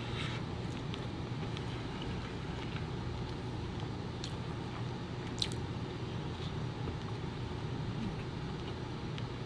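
A person chewing and biting soft food, with a few sharp mouth clicks and smacks, over a steady low hum.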